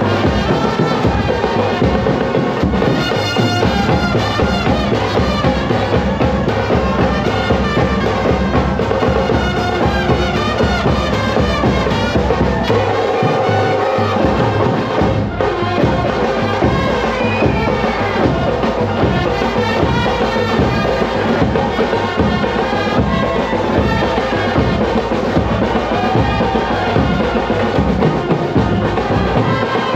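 Live Indian brass band, trumpets and saxophones, playing a festive tune over a steady beat from large double-headed drums struck with sticks.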